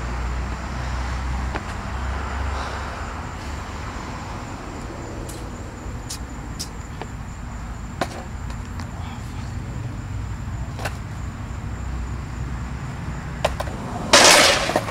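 Low steady background rumble with a few faint clicks. Near the end comes a sudden loud clatter, a skateboard hitting concrete, lasting about half a second.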